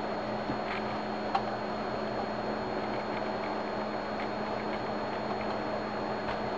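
Steady room background hum with a faint high-pitched whine, and a couple of faint clicks in the first second and a half.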